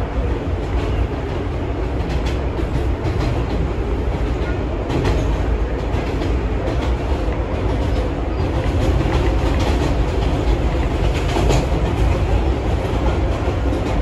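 An R160B subway train running along the track: a steady rumble of wheels on rail, with short clicks over rail joints, getting a little louder as it goes.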